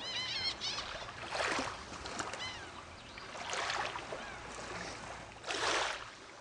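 Water lapping and washing in, rising in three swells about two seconds apart, with birds chirping near the start.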